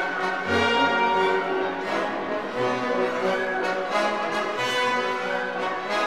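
Epic orchestral background music, with brass and strings holding sustained chords.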